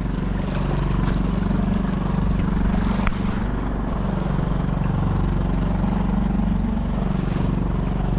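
Honda 2.3 HP four-stroke outboard motor running steadily at a constant speed.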